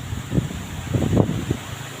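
Strong gusty storm wind buffeting the microphone in irregular low rumbles, over a steady hiss of heavy rain.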